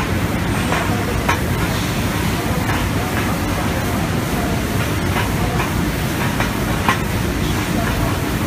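Steady rumbling hiss of machinery on a denim scraping robot line, with scattered light clicks and knocks.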